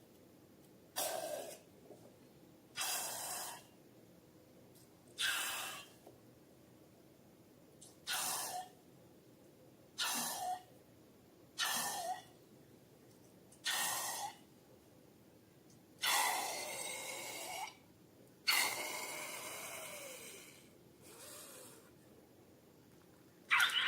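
Slime-filled balloon being squeezed, letting out about eleven short hissing squirts roughly every two seconds, two of them in the middle drawn out longer.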